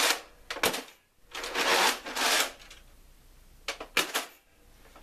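Hard plastic of a Nerf Mega Centurion blaster being handled: rustling and rattling swells with a few sharp clicks, the longest rustle about one to two and a half seconds in and two clicks near the end.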